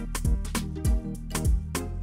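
Upbeat theme music with a kick drum that drops in pitch on each beat, about twice a second, over cymbal and percussion strokes. A steady bass note takes over near the end.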